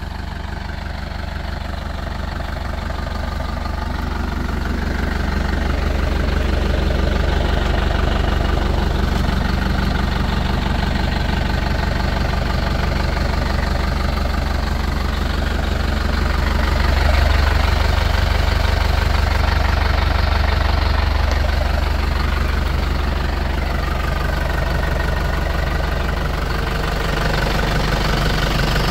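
Kubota M9540 tractor's four-cylinder turbo diesel running steadily at idle, growing louder over the first several seconds and then holding even.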